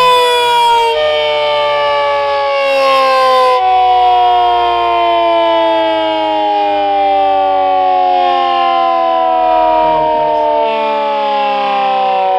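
Air-raid siren sounding a chord of several tones whose pitch falls slowly and steadily, the sound of the siren winding down.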